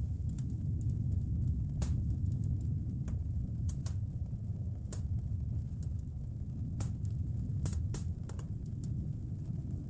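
Wood fire crackling in a fireplace: sharp, irregular pops and snaps, about a dozen in all, over a steady low rumble.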